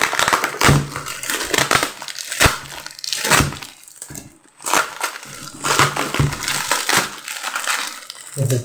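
Plastic bubble wrap crinkling and crackling as it is pulled and peeled off by hand, in irregular bursts with short pauses.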